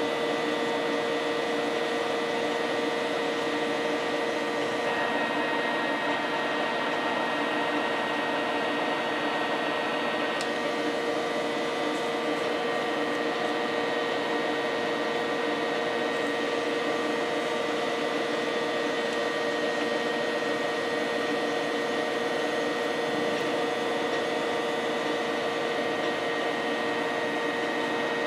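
Cincinnati Milacron 220-8 centerless grinder running under power: a steady machine hum from its motors and spinning wheels, with a constant whine over it.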